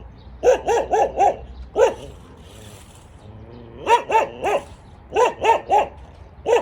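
A dog barking in quick volleys of three or four short barks, with brief pauses between the volleys.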